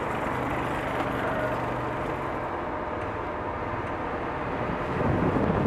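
Steady low engine rumble with a faint hum while the train stands idling. About five seconds in, a louder, rougher rumble with wind buffeting takes over.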